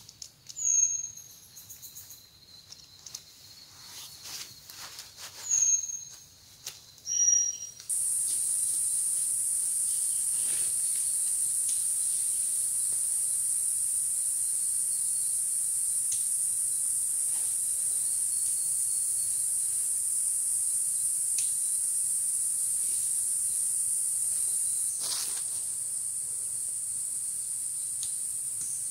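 Insects in a forest start a steady high-pitched drone all at once about eight seconds in, and it keeps going, easing slightly near the end. Before it there are a few short, sharp high chirps.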